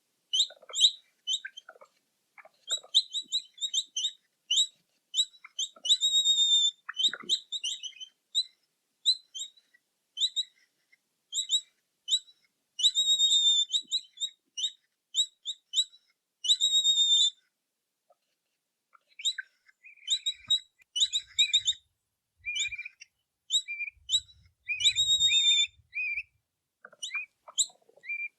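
Capybara giving high-pitched chirping squeaks in rapid runs, each run a quick string of short calls, with brief silent pauses between runs.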